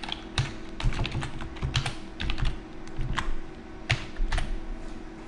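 Typing on a computer keyboard: a run of irregular keystroke clicks, over a faint steady hum.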